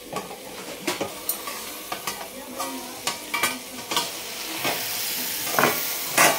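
Okra and whole tomatoes sizzling in ghee over a low flame under a steel plate used as a lid, with repeated sharp clicks of steel tongs gripping the plate's rim. Near the end the plate is lifted and the sizzling comes through louder.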